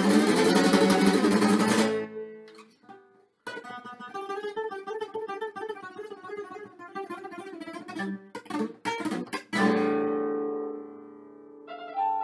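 Nylon-string classical guitar: a burst of rapid strumming that dies away, a short pause, then fingerpicked arpeggios, a few sharp strums and a chord left to ring out. Near the end, notes on an electronic keyboard come in.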